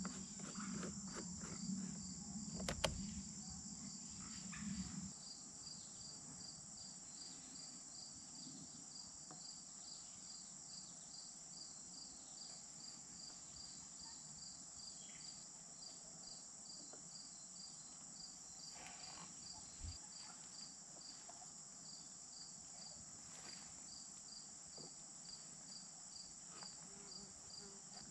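Insects chirping in the grass: a steady high-pitched buzz with a regular chirp about twice a second. In the first few seconds there is some handling noise from PVC pipe fittings, with one sharp knock about three seconds in.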